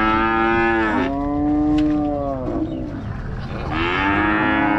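Cattle mooing: long, loud, drawn-out calls, two back to back and a third starting near the end.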